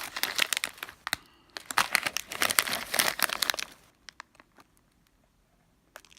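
Plastic snack packets crinkling and rustling as they are handled, dense for nearly four seconds, then a few faint taps.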